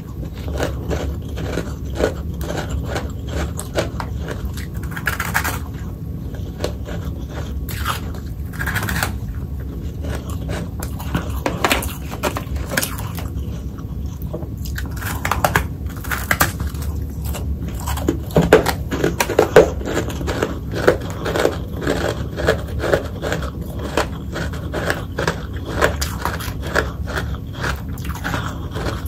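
Close-up chewing and crunching of hard freezer frost: dense crackling crunches, with louder, regular bites in the second half.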